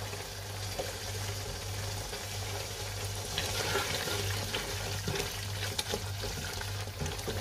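Thick curry gravy sizzling and bubbling in a pan as a wooden spoon stirs it, with small scrapes and taps of the spoon against the pan, over a steady low hum.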